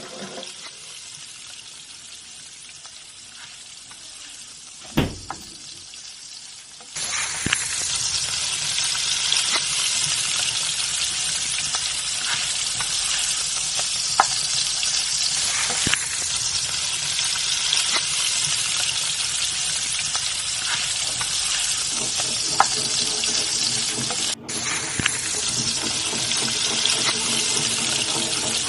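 Pan of egg Maggi noodles boiling hard on a gas stove: a steady bubbling, sizzling hiss with scattered small pops. It is soft at first, with a single knock about five seconds in, and jumps much louder about seven seconds in.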